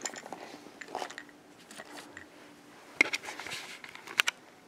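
Light handling noises: a few short taps and knocks of a doll and small toy props being moved about on a miniature table, over a faint low hum.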